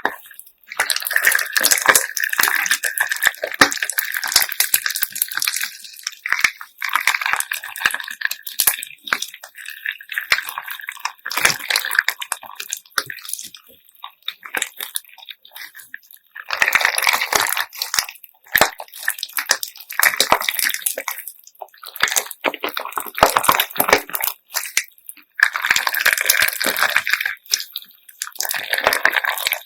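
Handmade slime mixed with assorted beads being squeezed and worked by hand: bursts of squishy crackling and many small bead clicks, with short pauses between the handfuls.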